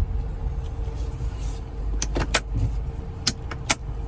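Car moving slowly, with a steady low rumble and a faint steady hum. Five sharp clicks fall in the second half, three close together about two seconds in and two more a second later.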